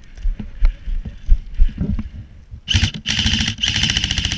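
Airsoft rifle firing on full auto, rapid clicking shots with a buzz: a short burst about two and a half seconds in, then a longer burst of about a second and a half. Before that, low uneven thumps of footsteps and movement.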